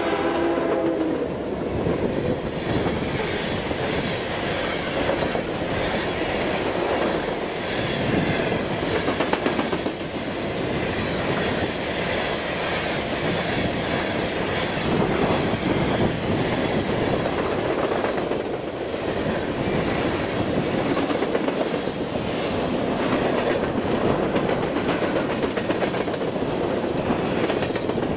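Union Pacific freight train passing close by at speed: the diesel locomotive's horn cuts off about a second in, then the rumble and steady clatter of wheels on the rails as boxcars and tank cars roll past.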